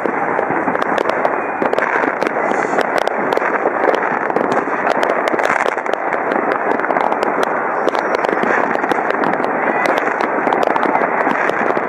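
Many fireworks and firecrackers going off at once: a dense, unbroken crackle of bangs and pops.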